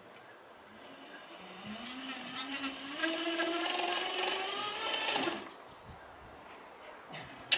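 Cycling rollers spun by the rear tyre of a fixed-gear track bike during a wheelie: a whine that climbs steadily in pitch as the pedalling speeds up, then stops abruptly about five seconds in. A single sharp click near the end.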